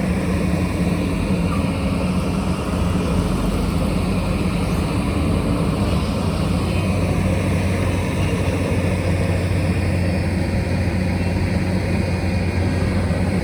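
Heavy construction machine's diesel engine running steadily, with an even low hum.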